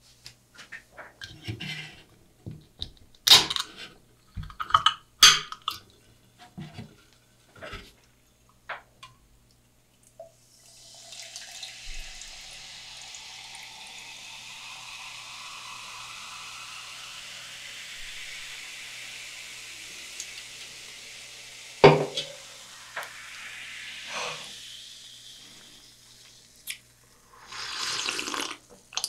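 Coke Zero poured from a can into a glass mug of ice, fizzing steadily for about fifteen seconds, with one sharp click partway through. It starts with a few seconds of clicks from handling the can and ends with the drink being gulped from the mug.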